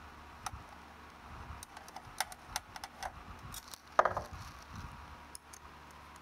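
Small metal clicks and taps of hand assembly as an aluminum channel is fitted to a plastic robot chassis and screwed on with a hex driver, with one louder knock about four seconds in.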